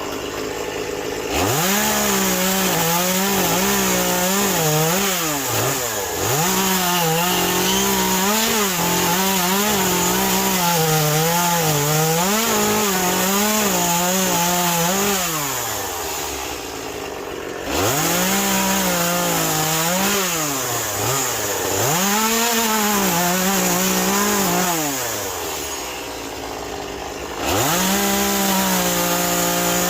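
Chainsaw revving up from idle and cutting into a soaking-wet western red cedar stump, its engine pitch wavering and dipping as the chain bites under load. It drops back to idle twice and revs up again three times in all.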